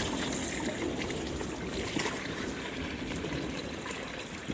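Heavy rain pouring down in a downpour, a steady hiss that fades slightly over the few seconds.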